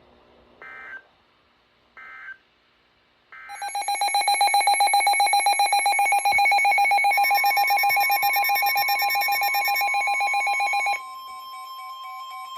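Three short bursts of EAS/SAME digital data tones about a second apart, the end-of-message code closing the previous warning. A receiver's loud, rapidly pulsing alert alarm follows from about three and a half seconds in. About seven seconds in, the steady single-pitch NOAA Weather Radio warning alarm tone joins it, and the pulsing drops to a quieter warble near the end, announcing a new warning.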